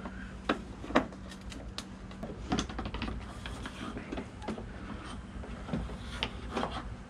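Scattered plastic clicks and knocks as the black plastic cover over the handle pivot of an Ego electric lawn mower is worked loose and lifted off the mower body.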